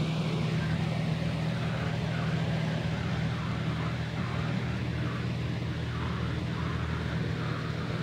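McGraw-Edison Toastmaster 14-inch box fan running steadily on its high setting: a low motor hum under a strong, even rush of air from the blades.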